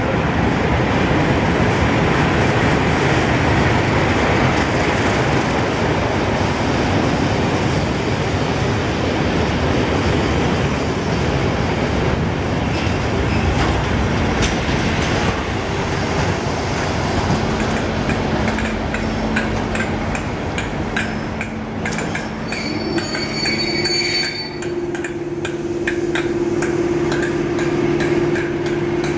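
A Class 31 diesel-hauled Network Rail test train runs into the station, its coaches rolling past with a heavy rumble. Later the wheels click over the rail joints and steady squealing tones set in as the train slows.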